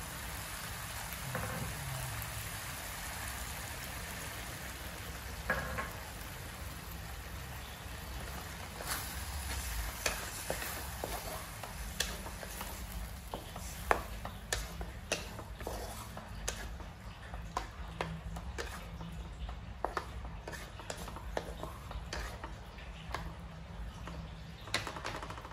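Sliced sausages simmering and sizzling in sauce in an aluminium wok as a wooden spatula stirs them. From about nine seconds in, frequent sharp clicks and taps sound over the steady sizzle.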